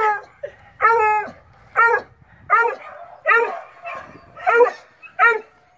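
Beagle barking repeatedly: about seven short barks, with a longer, drawn-out one about a second in.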